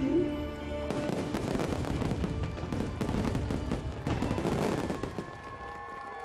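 Dense barrage of fireworks bursts and crackling, many reports a second, over show music. The bursts thin out about five seconds in, leaving held music notes.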